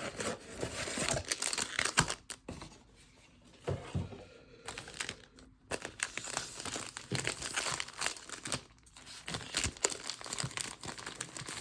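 Plastic wrap on a trading-card blaster box being torn and crinkled by hand, irregular crackling with a few brief pauses.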